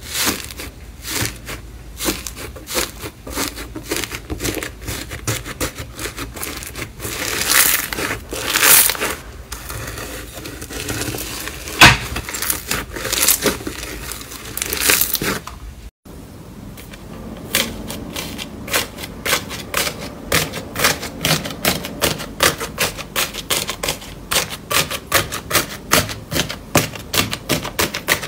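Hands pressing and breaking the dried crust of a crunchy matcha iceberg slime: a dense crackling of many small clicks, with one sharp loud crack about halfway in. After a short break the crackling turns into rapid popping clicks as a hand presses a brown iceberg slime with a cracked crust and small beads.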